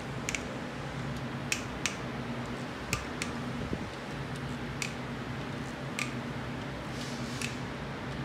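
Steel combination wrench clicking and clinking against the camshaft bearing cap bolts of a cylinder head as the bolts are turned, about eight sharp clicks at uneven intervals. A steady fan hum runs underneath.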